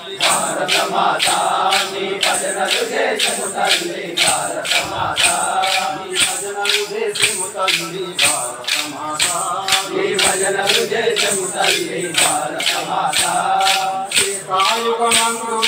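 A group of men singing a devotional prayer song together, keeping time with chiruthalu, hand-held pairs of wooden clappers, clacked in a steady beat of about two to three strokes a second.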